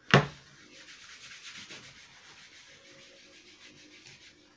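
A deck of playing cards being shuffled by hand: a soft, continuous rubbing rustle of cards sliding against each other, fading out near the end. A short, sharp knock comes at the very start.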